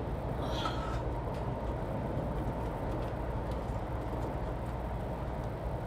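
Steady low vehicle rumble, with a brief faint high squeak about half a second in.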